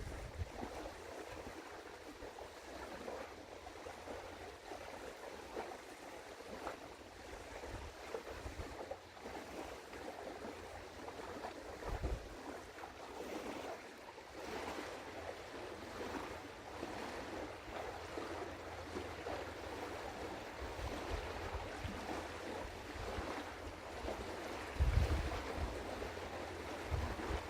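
Wind and river water washing, a steady rushing hiss, with low wind gusts buffeting the microphone about halfway through and again near the end.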